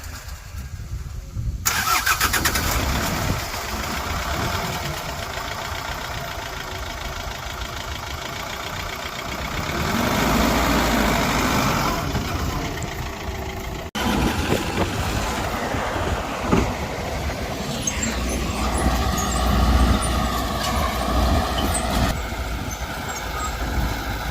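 Diesel engine of heavy earthmoving machinery running under load, loud and steady after a quieter first second or two, with an abrupt break about halfway through and the engine pitch rising and falling near the end.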